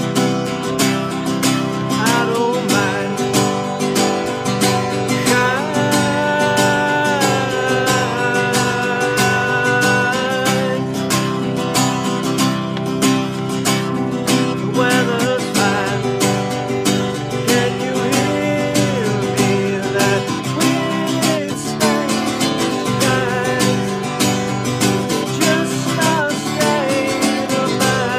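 A man singing while steadily strumming an acoustic guitar, his voice holding and bending long notes over the chords.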